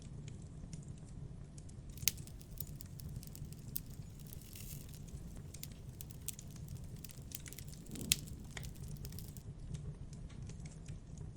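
Wood fire crackling, with scattered sharp pops, the loudest about two seconds and eight seconds in, over a low steady rumble.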